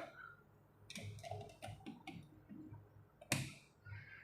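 Faint clicks and taps from handling an analog multimeter and its test probes, with one sharper knock about three seconds in.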